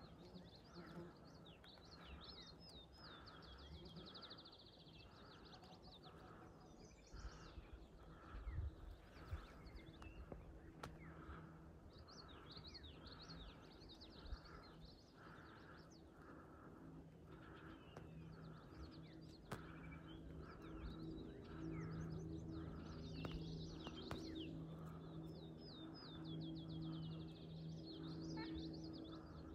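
Wild songbirds chirping and singing, with two long trills, over a quiet outdoor background. A soft note repeats steadily a little more than once a second. A faint hum comes in during the second half, and a few soft low thumps fall about eight to nine seconds in.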